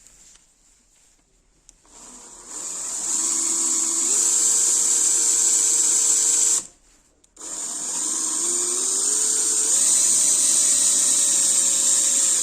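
Electric drill running in two goes: each time the motor spins up with a rising whine, then runs at a steady high speed before it stops sharply.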